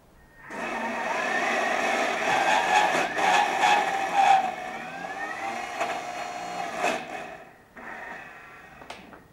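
Tabletop kitchen food processor running, its motor whining steadily as the blade chops almonds, dates, cardamom and honey with a splash of liquid into a cake-base paste. The motor's pitch shifts partway through, and a few sharp clicks come from pieces striking the bowl. It stops, then gives a shorter, quieter run near the end.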